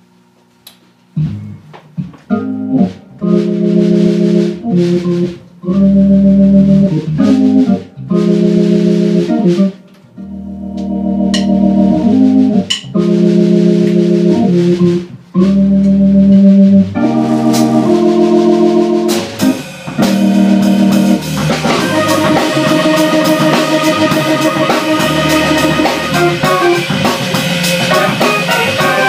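Organ chords played on an electronic stage keyboard, held in short phrases broken by brief gaps. About two-thirds of the way through, a drum kit joins with steady beats and cymbals, and organ and drums play together.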